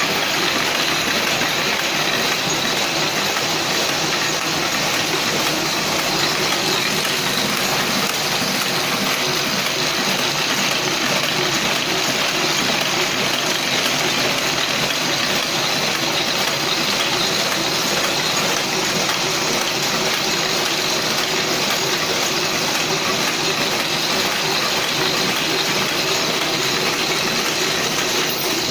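Toko 820 small offset printing press running steadily, a continuous mechanical clatter of the press at work.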